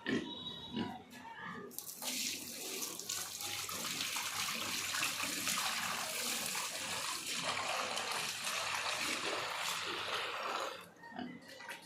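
Water running hard and steadily, starting about two seconds in and stopping near the end.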